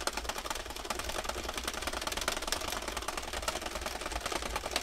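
Sentro 22 circular knitting machine being cranked steadily by hand: a fast, even run of plastic clicks as its needles ride round the cam track, driven by the replacement gear and handle. The machine is knitting under tension.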